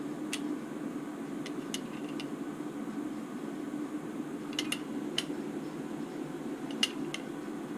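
Scattered light clicks and taps from handling an Align T-Rex 600 helicopter's tail boom while trying to work the torque tube out of it, which is stuck. A steady low hum runs underneath.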